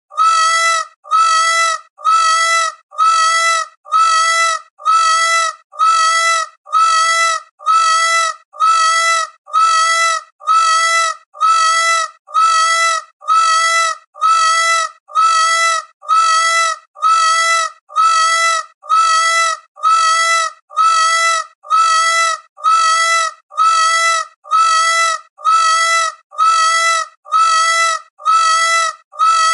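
Peacock calling: the same loud, pitched call repeated evenly about once a second, each call just under a second long.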